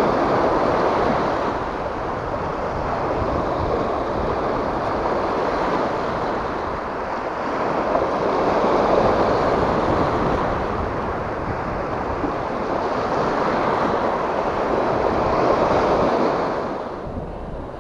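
Small sea waves washing and breaking over a rocky shoreline shelf. The surf swells and eases in slow surges, loudest about halfway through and again near the end, then fades.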